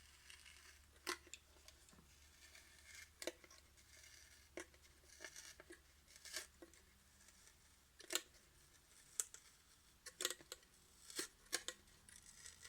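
Faint, irregular small clicks and taps as tools and parts are handled while opening up a smartphone, about ten spread over the stretch.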